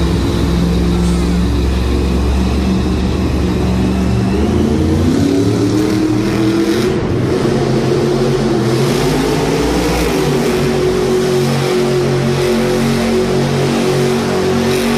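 A monster truck engine revving loud in the arena. Its pitch climbs about four seconds in and is then held high.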